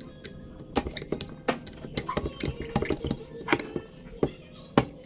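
Irregular metallic clicks and clinks of tools and parts being handled while a Tial 44 mm wastegate is taken apart.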